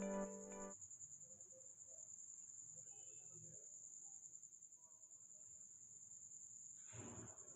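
Background music fading out in the first second, then near silence with a faint, steady, high-pitched trill throughout and a brief faint rustle near the end.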